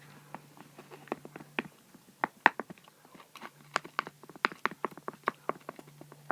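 Wet slime being mixed and squeezed by hand: a quick, irregular run of sticky clicks and snaps, several a second.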